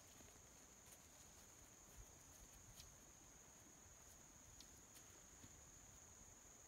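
Near silence: faint outdoor ambience with a steady high-pitched tone and a few soft ticks.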